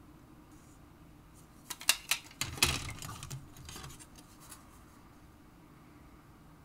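Plastic wing sprues from an AMT Klingon Bird of Prey model kit clicking and clattering against each other and a cutting mat as they are picked up and swapped, in a short cluster of knocks and scrapes about two seconds in.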